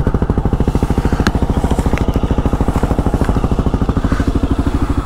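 A 2022 Kawasaki KLR 650's single-cylinder engine idling steadily through a LEXX slip-on exhaust: an even, quick pulse of about a dozen beats a second. A few faint clicks sound over it.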